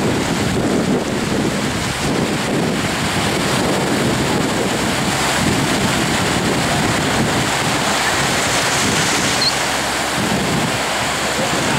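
Ocean surf breaking and washing in shallow water, with wind buffeting the microphone.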